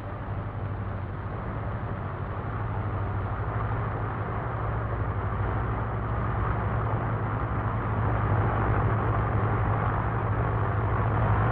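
Piston engines of a formation of bombers in flight, a steady drone that grows gradually louder, heard through an old, hissy film soundtrack.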